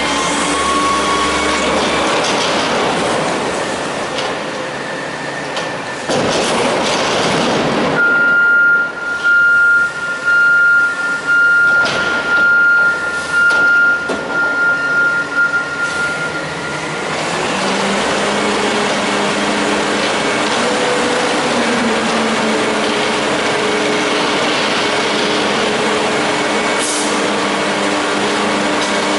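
CCC Amrep front-loader garbage truck's engine and hydraulics working as a dumpster is emptied into the hopper and lowered, with a steady high tone that pulses about once a second through the middle stretch. Then the truck runs with a steady low hum while the packer panel moves in the hopper.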